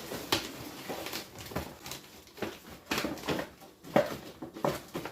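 Hard objects being handled and sorted by hand: an irregular run of knocks and clacks as scrap items are picked up, knocked together and set down.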